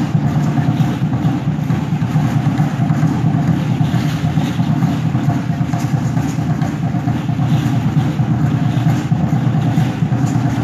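Loud, steady, dense drumming with the shaking of seed-pod rattles, the accompaniment of an Aztec dance, running on without a break.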